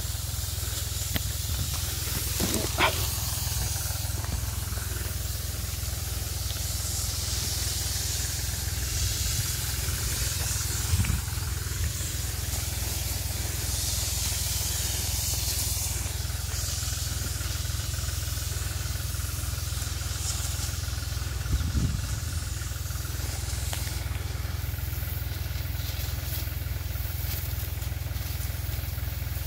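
Tractor engine running steadily, driving an HTP sprayer pump, under the hiss of a spray gun misting crops. Three brief knocks stand out, at about 3, 11 and 22 seconds in.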